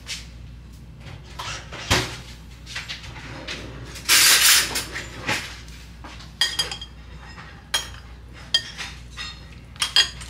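Dishes and cutlery clinking and knocking as a bowl of soup is served and handled, with a short rushing noise about four seconds in and several ringing clinks in the second half.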